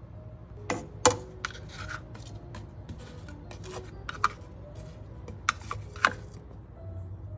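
Kitchen handling sounds: irregular sharp clicks and knocks of dishes and utensils being handled, the loudest about a second in, a few with a brief ring.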